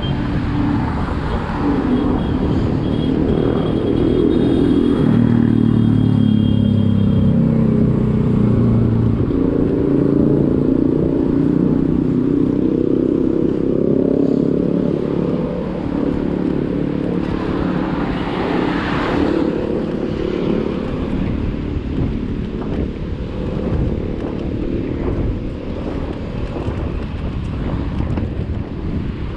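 An engine running steadily, its pitch falling and rising again over several seconds.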